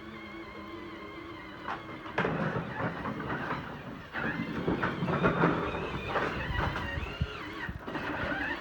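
Ride-on toy bulldozer's electric motor whining steadily, then, from about two seconds in, loud irregular rattling and scraping as the toy works through snow and ice.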